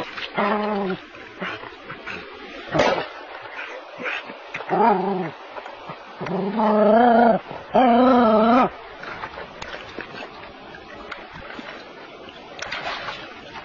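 Dog barking and yelping, four drawn-out calls with a wavering pitch; the last two come close together about two-thirds of the way in and are the longest and loudest. A single sharp knock about three seconds in.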